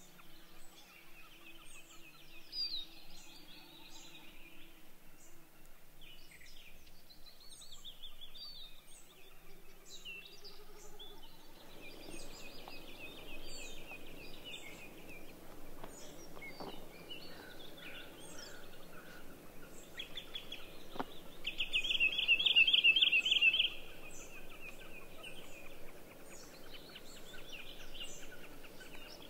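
Forest songbirds chirping and singing, with many short high calls. About two-thirds of the way in, a loud rapid trill lasts about two seconds.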